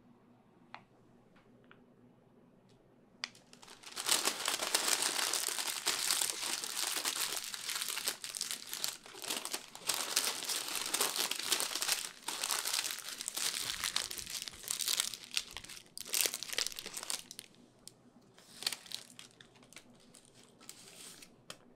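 Baking paper crinkling as it is folded around a salmon fillet and its ends twisted shut. After a few faint taps, the crinkling starts about four seconds in, runs dense and continuous, then thins to scattered crinkles near the end.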